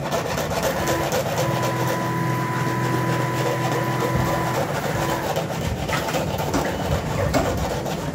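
Steady mechanical running noise with a rapid clatter. A motor drone comes in about a second in, stops after about four and a half seconds, and starts again near the end.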